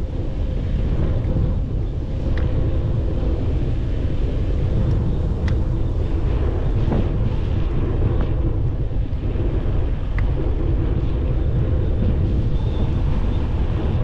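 Wind buffeting the microphone of a GoPro action camera during a bicycle ride, a loud steady low rumble. A few sharp clicks cut through it.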